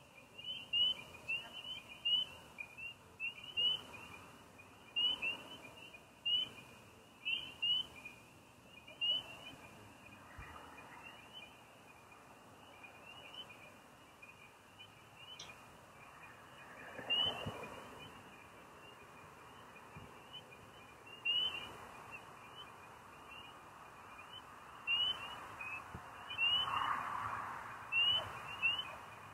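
Night chorus of frogs and crickets: short high chirps repeated in quick runs, dropping out for several seconds midway and then starting up again. Twice in the second half a soft, hazy swell of lower sound rises and fades beneath them.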